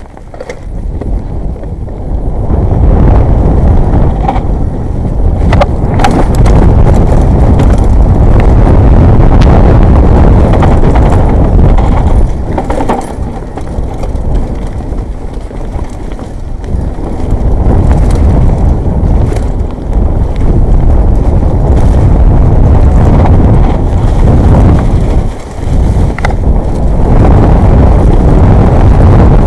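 Loud rumbling wind buffeting and trail rattle on an action camera's microphone as a Jamis Dragon 29 mountain bike is ridden over a rough trail. It builds up over the first couple of seconds, eases for a few seconds in the middle and briefly drops near the end, with a few sharp knocks from the bike.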